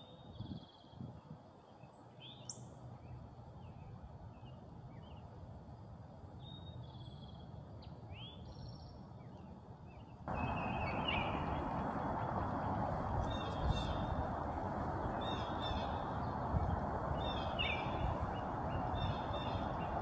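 Songbirds calling: scattered short, high, downward-slurred notes, then, as a steady background hiss suddenly grows louder about halfway through, repeated short song phrases.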